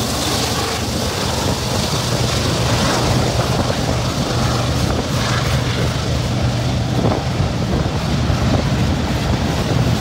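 Freight train's boxcars rolling past: a steady rumble of steel wheels on rail, with occasional clacks as the wheels cross rail joints.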